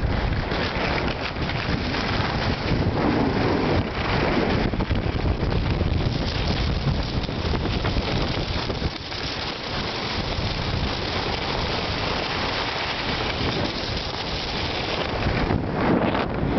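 Wind rushing over the camera microphone during a downhill ski run, mixed with the steady hiss and scrape of skis sliding over packed snow.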